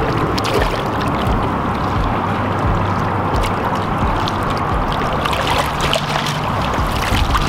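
Shallow bay water sloshing and washing against shoreline rocks, with small splashes as a fish is held in the water and released.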